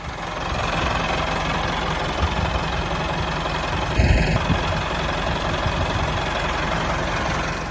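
Tractor engine idling steadily with a fast, even chugging. There is a brief louder sound about halfway through.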